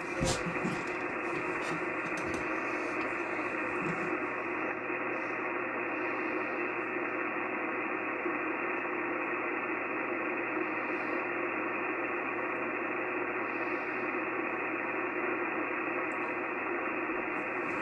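Icom HF transceiver's speaker giving out a steady hiss of 80-metre band noise and static, tuned to 3.795 MHz, with no clear voice coming through. The sound is cut off sharply above the voice range by the receiver's filter.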